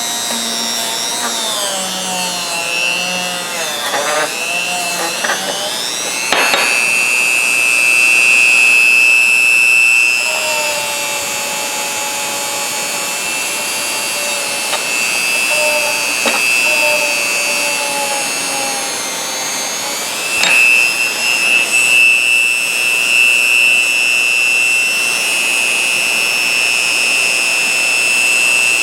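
Dremel rotary tool running at high speed on a Craftsman ratchet, cleaning the metal. Its high whine wavers in pitch for the first few seconds, then runs steadier, and jumps louder about six seconds in and again about twenty seconds in.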